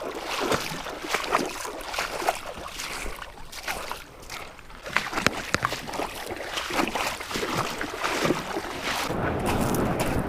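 Irregular knocks, clicks and water sounds of someone moving about and handling gear in a kayak on a river. A steady rushing noise takes over about nine seconds in.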